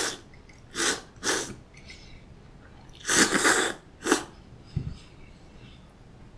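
A person slurping cold soba noodles dipped in sauce: three short slurps in the first second and a half, then a longer slurp about three seconds in and a short one right after. A soft low thump follows near the end.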